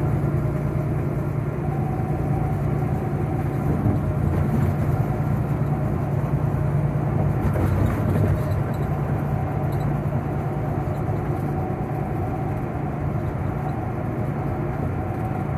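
Semi-truck's diesel engine and road noise droning steadily inside the cab at highway speed.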